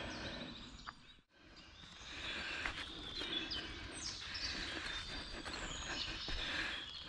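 Woodland birds singing in short high whistles and chirps over a low outdoor rumble, with scattered ticks and crunches of movement close to the microphone. The sound dips out to silence for a moment about a second in, then fades back up.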